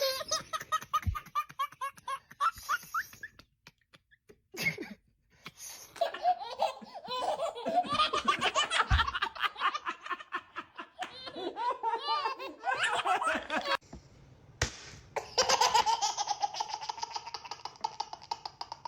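A baby laughing hard in long runs of quick, high-pitched belly laughs and giggles, with short breaks about four and fourteen seconds in.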